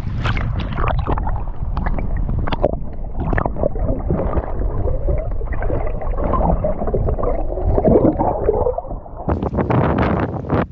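Shallow water sloshing and splashing around a snook held at the water's edge for release, in a loud, irregular churn.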